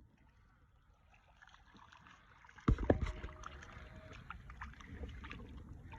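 Two sharp knocks in quick succession about three seconds in, followed by irregular clattering and rustling handling noise.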